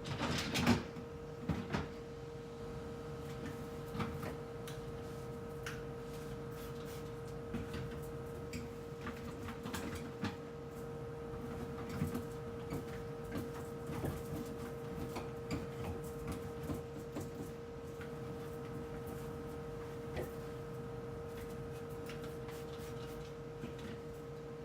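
Scattered knocks, clicks and clatter of refrigerator shelves and food containers being handled during cleaning, loudest in a cluster in the first couple of seconds, over a steady electrical hum.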